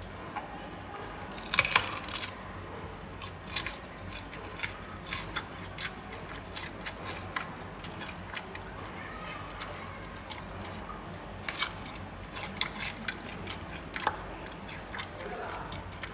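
Giant panda biting and chewing bamboo: sharp cracking and crunching as the stalk splinters. There are two loud flurries of cracks, one about two seconds in and one about three-quarters through, with scattered smaller crunches between them.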